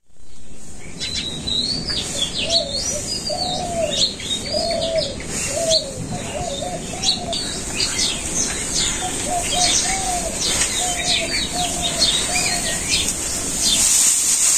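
Several birds chirping. Under them, a lower call repeats in a steady series about twice a second, over a steady high hiss.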